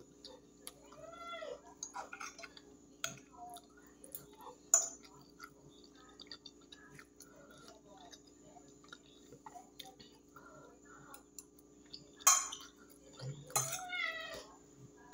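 A metal fork clinking and scraping against a glass plate while eating, in scattered sharp clicks, the loudest about a third of the way in and again near the end. A few short rising-and-falling calls come in between, over a steady low hum.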